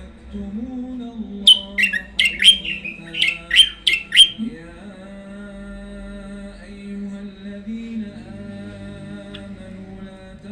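Caged songbird giving a quick burst of about eight sharp, high notes, each falling steeply in pitch, starting about a second and a half in. A man's voice chanting or singing holds steady in the background.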